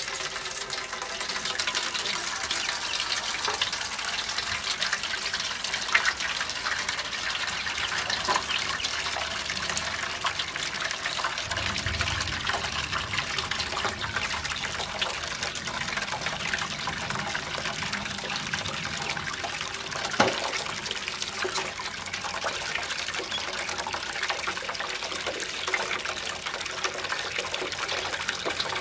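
Tap water pouring steadily into a metal basin as it fills, with ducklings paddling and splashing in it. A sharp knock stands out about six seconds in and another near twenty seconds.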